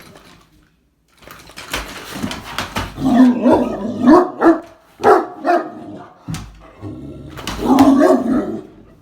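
Great Dane barking repeatedly in loud bursts, agitated by a vacuum cleaner.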